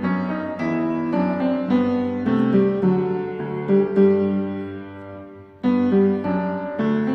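Background piano music: a gentle melody of held notes that dies away about five and a half seconds in, then starts again.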